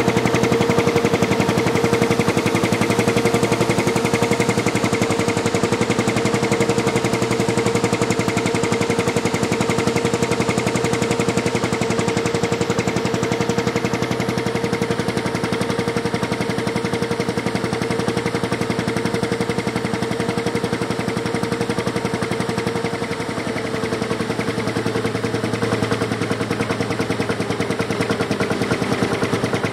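International Harvester 3588 2+2 tractor's DT-466B six-cylinder turbo diesel running steadily close by, a fast even rattle of firing pulses with a steady droning tone over it. It eases off briefly a little after twenty seconds, then carries on.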